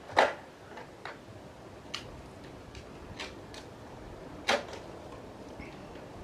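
About six sharp clicks and snaps from hand work on a screen panel, spaced irregularly, the loudest about a quarter second in and about four and a half seconds in.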